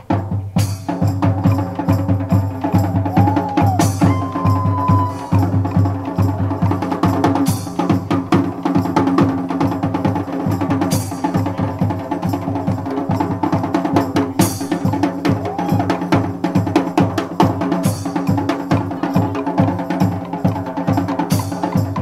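A street band's percussion section playing a drum break: drums in a fast, steady rhythm with a loud accent about every three and a half seconds, the brass having stopped just as it begins.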